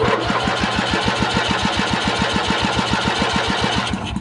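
Coleman PowerMate Vantage 8000 generator's engine on a start attempt after sitting almost a year, with carb cleaner sprayed into the intake: it runs in rapid, even pulses, about twelve a second, then cuts off suddenly at the end.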